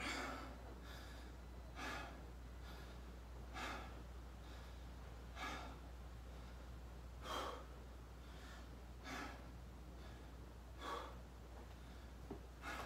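A person breathing hard and catching his breath after exercise, with one heavy breath about every two seconds.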